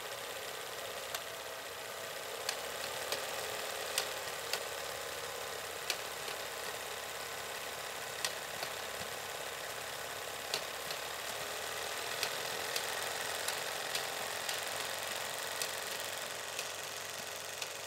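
Old film projector sound effect: a steady mechanical running noise with hiss and scattered sharp clicks.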